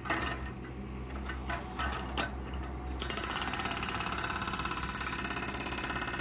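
JCB 16C-1 mini excavator running, with a few sharp knocks at first. About three seconds in, its hydraulic breaker starts rapid, even hammering as it breaks up old tarmac.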